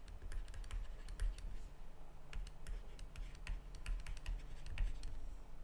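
A stylus tapping and scratching on a tablet while writing by hand: a string of irregular light clicks, over a steady low hum.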